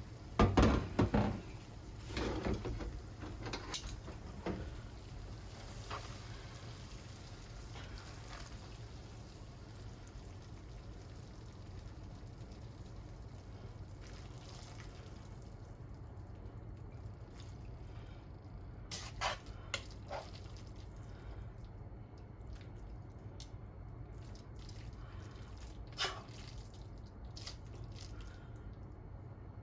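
Kitchen clatter: a burst of knocks and clinks in the first second or so, then sparse sharp taps over a low steady hum.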